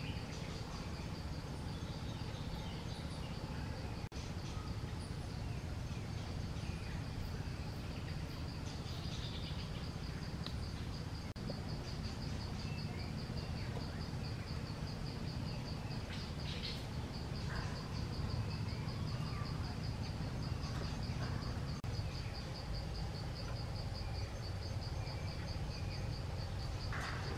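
Insects trilling steadily in a high, rapidly pulsing tone over a constant low background rumble, with scattered faint chirps.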